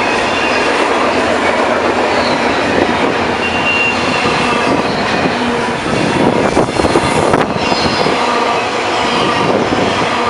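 A train passing close by on the main line: a steady rumble and rattle of the cars, with faint squealing tones from the wheels and a run of sharp wheel clacks over the rail joints about six to seven and a half seconds in.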